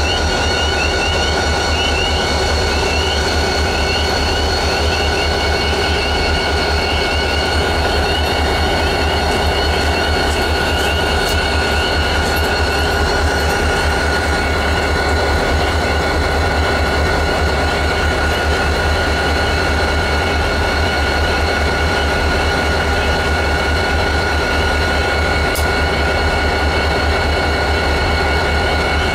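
Several diesel-electric freight locomotives idle together. Their engines make a steady low rumble, with constant high whining tones on top.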